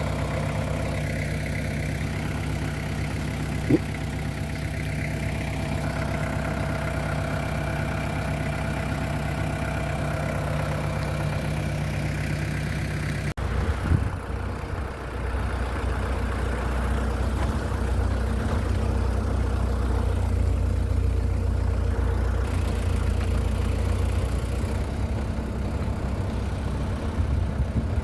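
Vehicle engine running steadily with a droning hum. About halfway through there is a sudden change to a louder, deeper rumble, as of the vehicle driving on.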